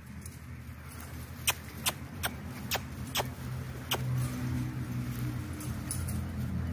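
A low, steady engine-like hum that grows louder from about four seconds in, with six sharp clicks spaced roughly half a second apart in the middle.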